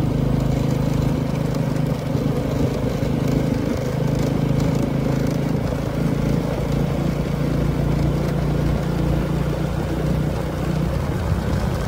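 Motorbike engine running steadily under load while climbing a steep mountain-pass grade in third gear.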